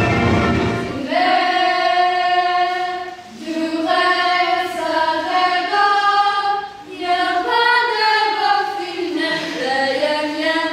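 Female voices singing long held notes in close harmony with no instruments, in three phrases that step in pitch between notes. It enters about a second in, as the instrumental music beneath drops out.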